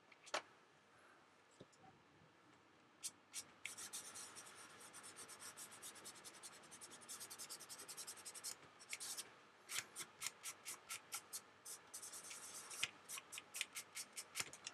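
Fingertips rubbing weathering colour into the painted plastic skin of a scale model aircraft wing. Faint and scratchy: fast short strokes several times a second from about three seconds in, then slower, separate strokes about two a second in the second half.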